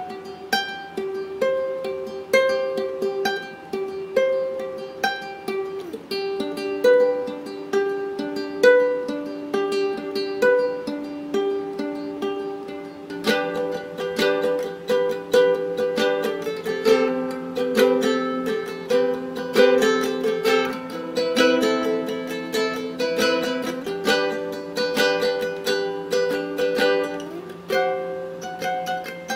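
Handmade A.Cura Custom ukulele being fingerpicked in a melody of single plucked notes. About halfway through, the playing gets fuller, with several strings picked at once.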